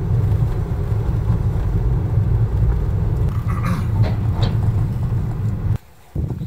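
Road and engine noise inside a moving car's cabin: a steady low rumble that cuts off abruptly near the end, leaving a much quieter outdoor background.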